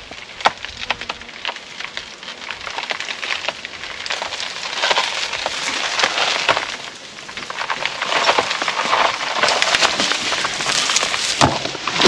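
Lady finger banana plant's trunk (pseudostem) splitting and tearing after being sliced, as it bends over and comes down: a run of fibrous crackling and snapping, heaviest about five seconds in and again from about eight seconds, with a sharp crack near the end.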